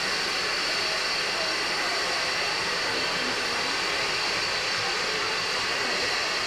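Steam locomotives standing with steam escaping, a steady hiss from their cylinder drain cocks and valves that goes on without a break.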